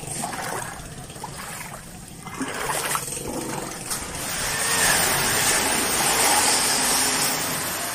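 A steel shovel scraping and turning a heap of wet mortar on a concrete floor, a wet, gritty scraping that grows louder about halfway through.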